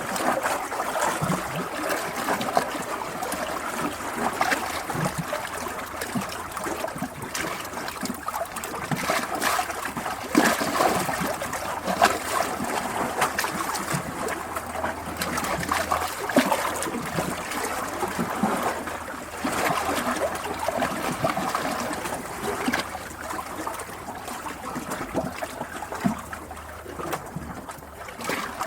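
Flowing stream water trickling and gurgling, a steady rush dotted with many small splashes.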